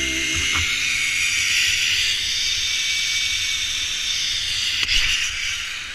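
Steady rushing hiss of wind across an action camera's microphone during a fast zip-line ride, with two faint knocks, fading out near the end.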